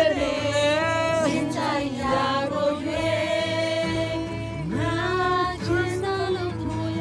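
A song playing: a singing voice over music with a steady low bass line.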